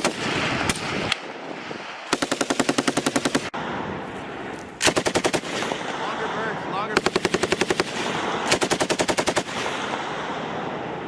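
A machine gun firing five bursts of about a second each, with short pauses between them. The shots come rapidly and evenly, around ten a second.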